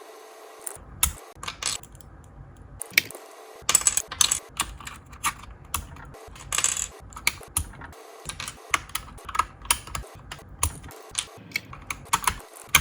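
Keys clacking on a computer keyboard fitted with Mario keycaps, pressed in irregular runs and single strokes.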